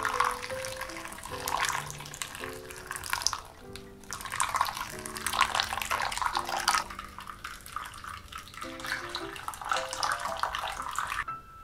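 A thin stream of boiling water poured onto ground coffee in a paper filter in a ceramic pour-over dripper, splashing and trickling, with a brief pause about four seconds in; the pour stops near the end. Soft background music plays underneath.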